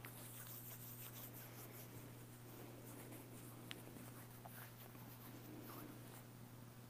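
Faint rustling and rubbing of cloth as the priest wipes and handles the chalice and altar vessels, with one light click of a vessel a little past halfway. A steady low electrical hum runs underneath.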